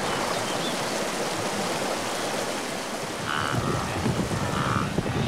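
Steady rushing of flowing river water, with a few short calls rising above it from about three seconds in.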